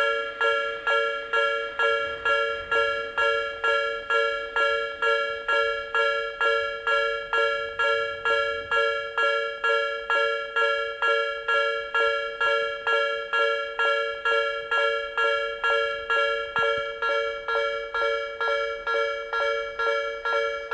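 Japanese railway level-crossing warning bell ringing steadily, a little over two strikes a second, each strike ringing on into the next.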